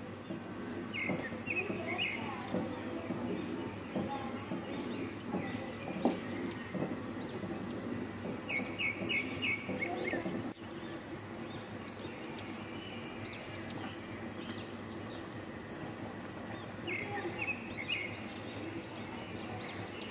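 A wooden spatula stirring and scraping thick simmering milk and rice in an aluminium pot for about the first ten seconds. A bird chirps in short runs of quick notes, three times.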